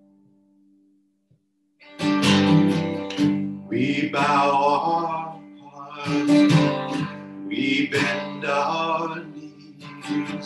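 Steel-string acoustic guitar strummed in chords, with a man singing along. For about the first two seconds there is near silence as a held chord dies away, then the strumming comes in.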